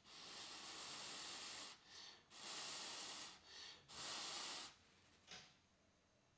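A man blowing hard through pursed lips on a small metal tongs-like tool: three long breathy blows, the first the longest, with short puffs between them.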